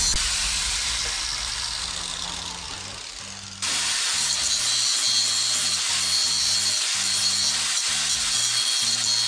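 Angle grinder running as it cuts into a plywood board, a steady high whine and hiss. It fades over the first few seconds, then cuts back in abruptly about three and a half seconds in. Background music with a slow, stepping bass line plays underneath.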